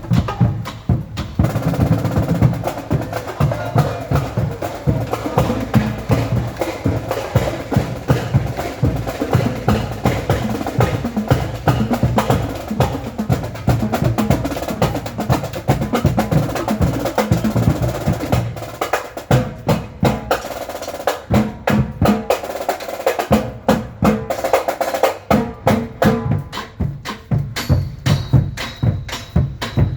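Loud music with prominent percussion and a steady beat, its low end thinning out at times in the second half.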